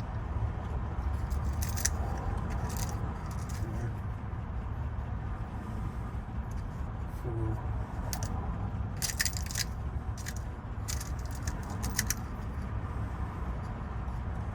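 Small metal lock parts and keys clicking and jingling as they are handled, in scattered short clinks with a busier cluster about two thirds of the way in, over a steady low hum.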